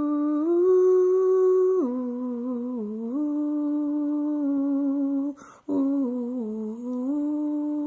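A person humming a slow tune in long held notes that step up and down, pausing for a breath about five and a half seconds in.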